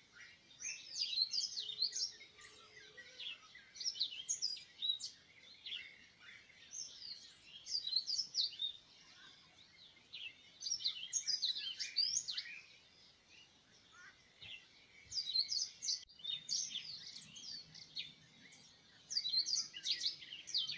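Small birds chirping, many quick high calls coming in bursts with short lulls between them.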